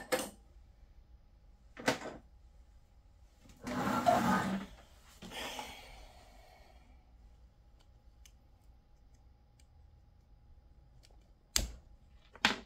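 Hands working on a small RC truck: a few sharp clicks of small parts and tools, and a louder rustle of handling noise about four seconds in.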